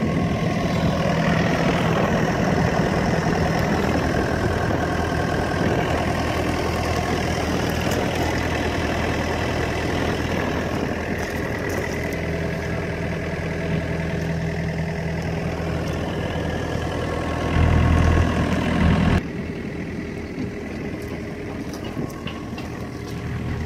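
Komatsu PC50MR-2 midi excavator's diesel engine idling steadily. About eighteen seconds in, the low rumble swells louder for a second or two, then the sound drops abruptly and turns quieter and duller.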